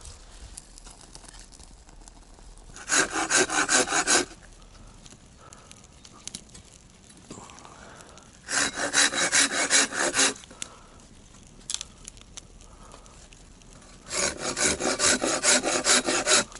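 Hand saw cutting into a wooden log in three bouts of quick back-and-forth strokes, with short pauses between them.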